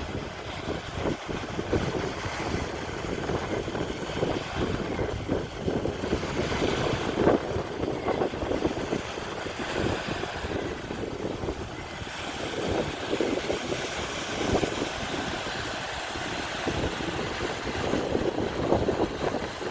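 Sea waves washing, rising and falling in slow surges, with wind buffeting the microphone.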